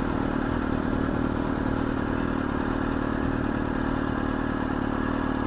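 Motorcycle engine running steadily as the bike rolls slowly in traffic.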